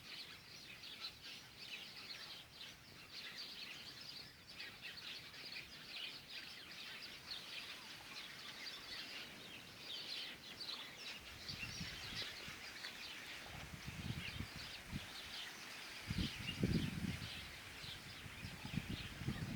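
A chorus of many small birds chirping continuously. In the second half a low rumble comes and goes.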